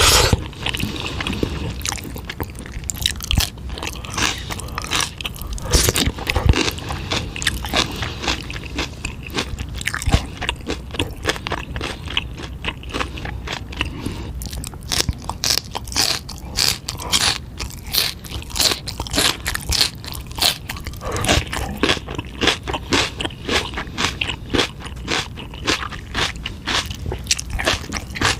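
Close-miked chewing and biting of eel and spicy fire-chicken noodles: a dense, continuous run of quick wet mouth clicks and small crunches.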